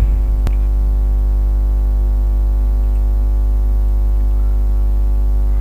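Steady electrical mains hum with a buzzy stack of overtones, unchanging throughout; a single short click about half a second in.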